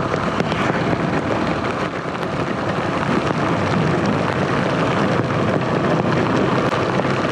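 Motorcycle riding at speed through heavy rain: a steady rush of wind and rain on the microphone and wet-road noise, with the engine running underneath.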